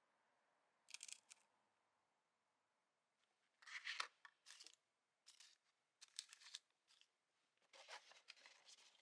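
Faint handling noises: a string of short scraping, crinkling bursts, the busiest from about four seconds in.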